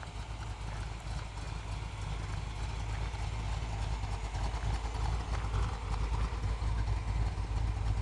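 1964 Corvette Sting Ray's 365 hp 327 V8 idling with an uneven, lumpy beat, growing slightly louder.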